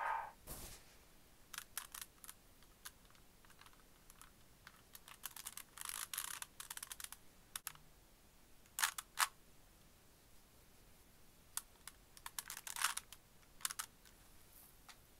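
Plastic Rubik's Cube layers being turned by hand: irregular sharp clicks and short rasping runs of turns, with the busiest stretches about six seconds in and again near the end.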